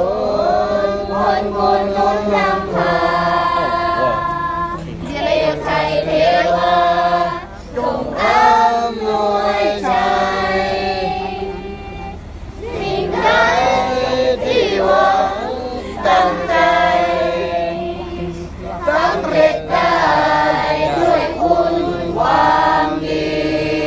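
Several voices singing a song together in phrases of a few seconds, with a short break about halfway through.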